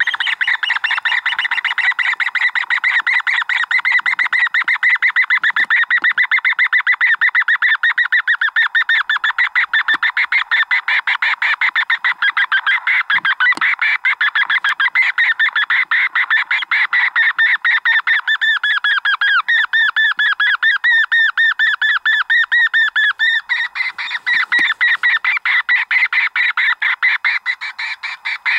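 Predator call playing a rapid, continuous pulsed distress sound to lure a coyote in. It starts suddenly and repeats without a break.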